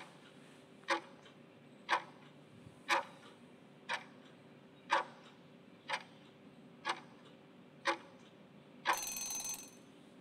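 Countdown-timer sound effect: a clock ticking once a second for about nine ticks, then a short ringing alarm of about a second near the end as the time runs out.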